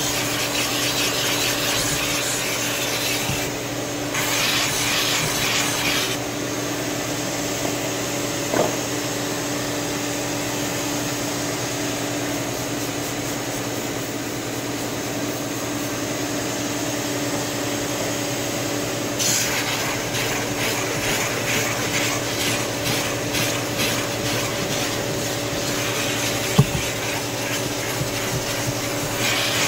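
Handheld steam cleaner hissing steam through a brush nozzle and scrubbing a cloth car seat in quick back-and-forth strokes, over a steady machine hum. The hiss and scrubbing run for the first several seconds, stop, and start again about two-thirds of the way in.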